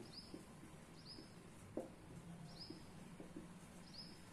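Near-quiet room with faint, short high-pitched chirps, all alike, recurring every half second to a second, and a few soft ticks of a marker writing on paper.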